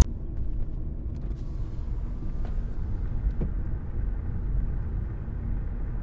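Steady low rumble of road and engine noise inside a moving car's cabin, with a few faint ticks.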